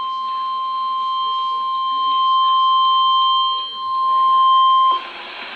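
Emergency weather alert tone: a single steady high tone just above 1 kHz, the NOAA Weather Radio 1050 Hz warning alarm that signals a warning is about to be broadcast. It holds for about five seconds, then cuts off suddenly to a steady radio hiss.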